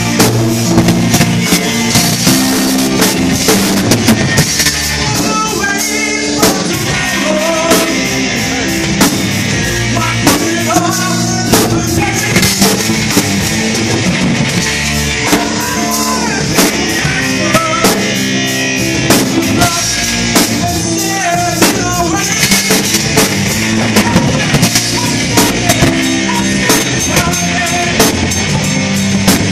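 Live band playing amplified rock-funk music: a drum kit keeping a steady beat under electric guitar and keyboards, with a singer's voice in stretches.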